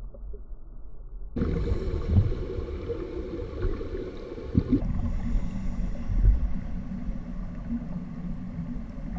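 Underwater ambience picked up by a camera in its dive housing: a low rumbling wash with gurgling and a few light knocks. It changes abruptly twice as the clips cut.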